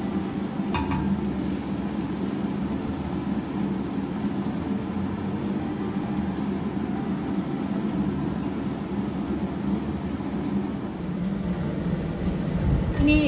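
A steady low mechanical hum runs throughout. About a second in there is a brief scrape of a spatula in a cooking pot.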